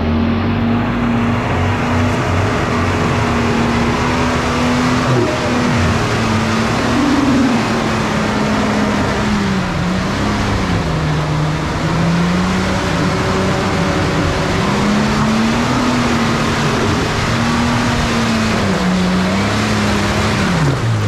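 Toyota Land Cruiser pickup's 4.5-litre straight-six petrol engine working hard as the truck climbs through deep mud, its note rising and falling with the revs over a steady hiss of tyres churning the mud.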